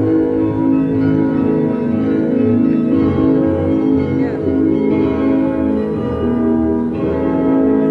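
The Dom Tower's carillon playing a melody: many bell notes overlap as each keeps ringing after it is struck.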